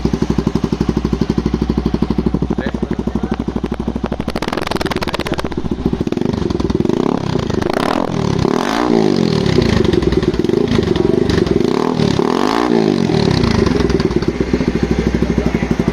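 TVS Apache RTR 200's single-cylinder engine idling through an aftermarket Akrapovic-branded exhaust, then revved twice past the middle, each rev rising and falling back to idle.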